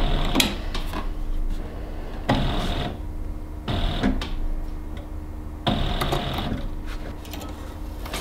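Tandy Stitchmaster Pro leather sewing machine run in three short bursts: its motor whines and the needle mechanism cycles for under a second each time, with clicks in between.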